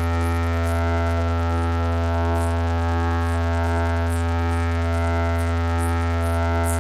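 A large DJ sound system with RCF speakers playing a steady, deep bass test tone with a droning stack of higher tones above it, as an all-frequency sound check. Short high hissing accents recur about once a second.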